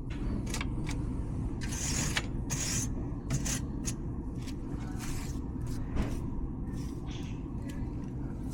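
Air rushing steadily into a furnace's cleaned return-air vent: a low, even rush, the return breathing freely now that the clogging dust is off it. A few brief scraping rustles sound over it, the strongest about two seconds in.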